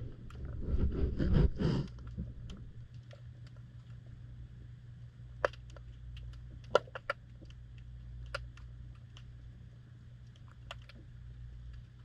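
Muffled underwater sound through a GoPro in its waterproof housing, with a manatee nosing against the camera. There is a louder rubbing and bumping in the first two seconds as its skin presses on the housing. After that comes a low steady rumble with scattered sharp clicks.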